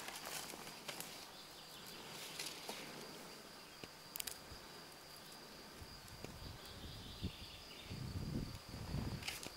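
Faint outdoor ambience with a steady high-pitched insect buzz, a few light clicks, and a low rumble near the end.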